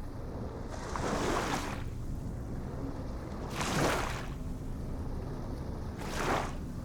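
Ocean waves washing in, three rising and falling hisses about two and a half seconds apart, over a steady low rumble.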